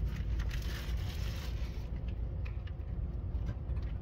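Steady low rumble of a train carriage interior, with rustling and scraping noise over the first two seconds.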